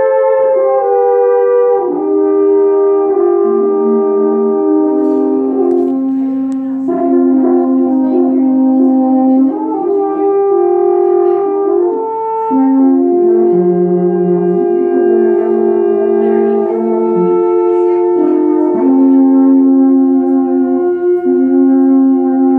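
Two alphorns playing a duet in harmony: long held notes moving together from one pitch to the next.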